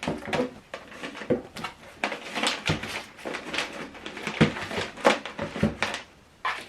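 Hands handling plastic rear speakers and speaker wire: an irregular run of clicks, taps and rustles.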